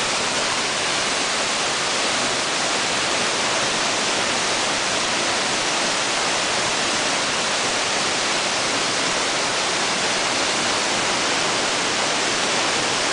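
A waterfall's steady rushing roar of falling water, an even, unbroken hiss with no changes.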